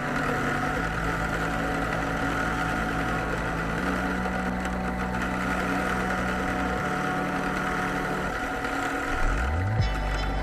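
Drill press motor running steadily with a buffing wheel spinning against a stone, giving an even hum and whine.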